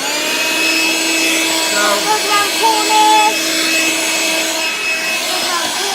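G-Tech HV01 9.6-volt cordless handheld vacuum switched on: its small motor spins up in a quick rising whine, then runs at a steady high whine over the rush of air through the nozzle.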